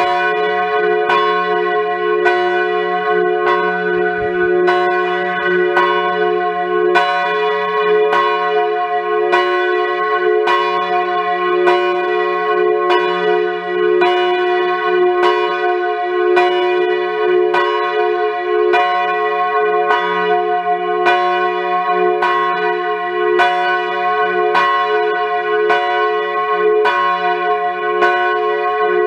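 Large swinging church bell, the F3 campanone of a Grassmayr bronze peal, rung in full swing by an electric drive, its clapper striking about once a second. Each stroke rings on into the next, so a steady deep hum sits under the repeated strikes.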